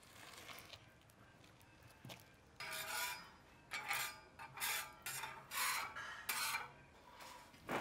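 Flat metal spatula scraped back and forth across a large oiled iron tawa griddle, spreading the oil: about six rasping strokes, starting a little over two seconds in.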